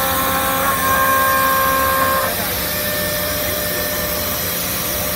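Big CNC gantry machining center milling aluminium: a steady multi-pitched whine that drops away about two seconds in, leaving a steady hissing machine noise.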